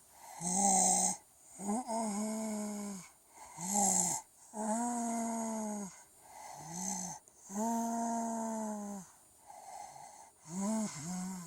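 Young child with a cold snoring through a congested nose and throat: a repeating cycle of croaky, drawn-out pitched tones, uploader-compared to E.T.'s voice, alternating with short wheezy, hissing breaths, about six snores in all.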